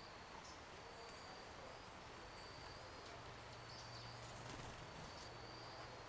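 Faint insect chirping: short, thin, high-pitched buzzes at one even pitch, repeating about once a second over a steady hiss.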